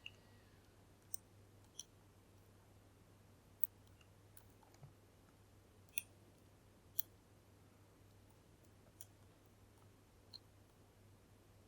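Faint, irregular small metallic ticks, about ten in all, from a pick probing the pins of a Kale Kilit 10-pin dimple lock held under tension while searching for binding pins.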